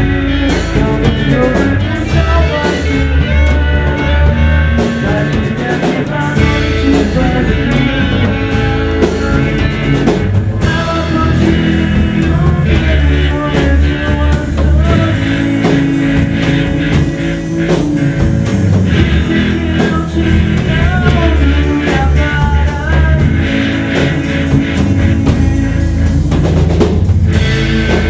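Rock band recording playing, with a drum kit and guitars.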